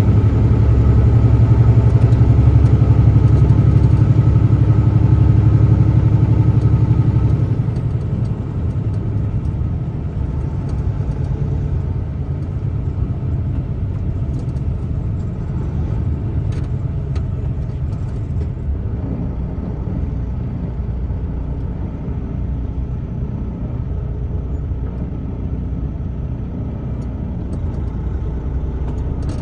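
A truck driving, heard from inside the cab: steady engine drone and road rumble. The engine drone is louder for the first seven seconds or so, then eases to a quieter, even rumble.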